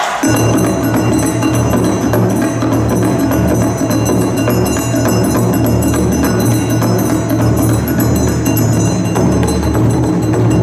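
Yosakoi dance music with a steady driving beat and percussion, cutting in suddenly right at the start.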